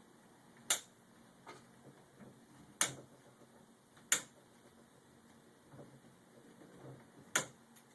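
Cutters snipping the excess tails off plastic zip ties: four sharp, short snips spread a second or more apart, with a fainter click between the first two.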